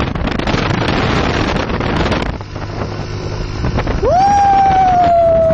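Wind buffeting the microphone on a moving motorbike, with a low engine hum showing through when the wind eases. About four seconds in, a loud tone glides up and then holds, sinking slightly in pitch.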